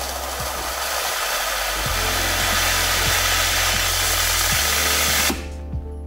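Espresso machine steam wand purging, a steady loud hiss of steam spitting hot water. This is the purge of condensed water before frothing milk. The hiss cuts off suddenly about five seconds in.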